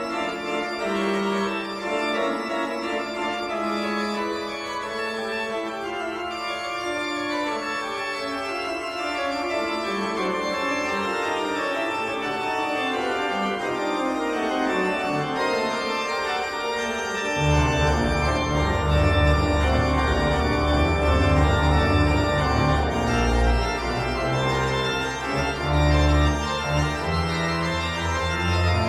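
Background music played on an organ-like keyboard, with held chords and moving notes; a deeper bass part comes in a little past halfway and the music gets louder.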